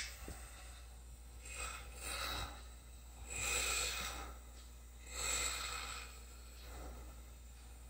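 A series of hissing mouth breaths, one about every two seconds, taken around a home-built lidocaine atomizer wand held in the mouth, drawing the anaesthetic spray down toward the throat and trachea.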